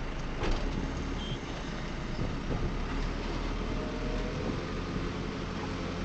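Diesel engine of a JCB 3CX backhoe loader running steadily, with a sharp knock about half a second in.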